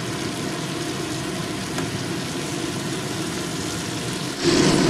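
Food frying in hot mustard oil in a pan, a steady sizzle that gets suddenly louder about four and a half seconds in.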